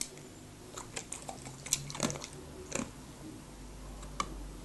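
A dog's claws clicking and tapping on wooden floorboards as it shifts its feet, a handful of scattered light clicks.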